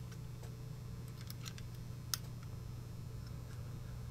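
A few faint, light clicks and taps of a steel Bommer double-acting spring hinge being handled in the fingers, the sharpest about two seconds in, over a steady low hum.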